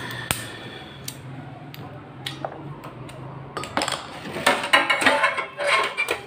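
Metal parts and tools of a gas stove clinking and knocking as they are handled, a few separate clicks at first and then a busy run of clatter in the second half, over a steady low hum.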